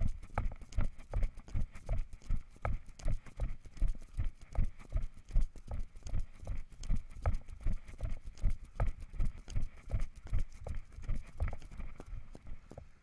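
Running footsteps on a dry dirt and grass track, heard as even thuds about three a second through a body-worn camera; they fade out near the end.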